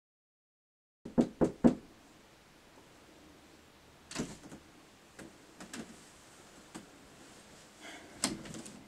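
Three quick, loud knocks on a door about a second in, after a second of dead silence, followed by a few fainter scattered clicks and thuds as the door is opened.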